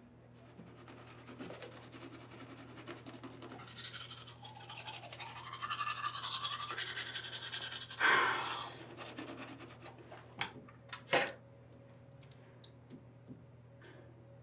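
Manual toothbrush scrubbing teeth in quick, rhythmic strokes that grow louder, then a short louder burst about eight seconds in and two sharp knocks a few seconds later, over a steady low hum.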